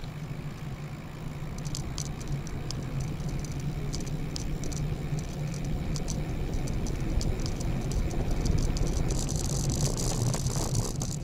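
Loaded touring bicycle being ridden: a steady low rumble with light, irregular rattling clicks from the bike and its gear. A hiss swells about nine seconds in.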